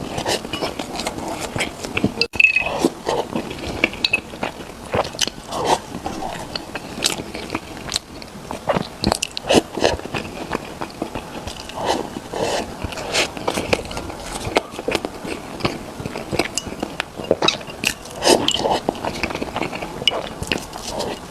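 A person biting and chewing food with mouth sounds picked up close, giving many short, uneven clicks. A sharper, louder click comes about two seconds in.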